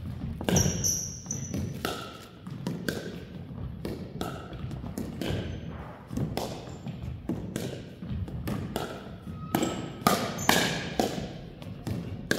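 Pickleball rally: irregular sharp hits of paddles on a plastic pickleball and the ball bouncing on a hardwood gym floor, echoing in the hall, with a few short squeaks of shoes on the floor.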